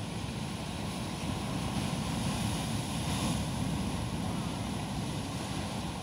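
Sea waves surging and breaking over a rocky reef shore: a steady, rumbling rush that swells about a second in, peaks around the middle and eases toward the end.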